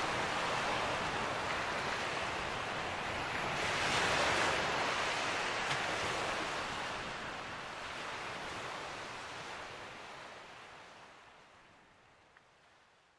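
Rushing noise of sea waves, swelling about four seconds in and then fading out gradually.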